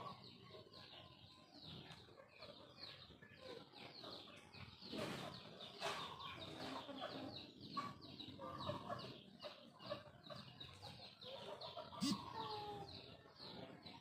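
Chickens clucking, over a steady run of quick high chirps, with a sharp click near the end.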